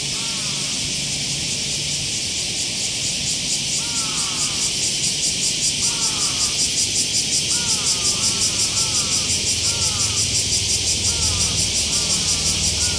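High, steady insect chorus that settles into an even pulsing beat of about four a second from about three seconds in. Short arching chirps repeat at a lower pitch throughout.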